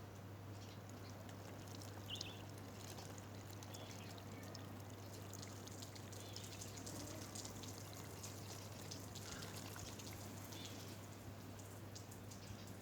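Faint water pouring and trickling into a leak-tested Lister D engine radiator, with small drips and dribbles as water runs out through holes in the crimped core. A steady low hum sits underneath.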